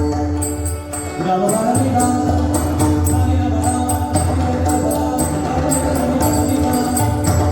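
Devotional Marathi abhang bhajan music: pakhawaj and tabla drumming with small hand cymbals striking a regular beat over held melody notes. The music dips briefly about a second in.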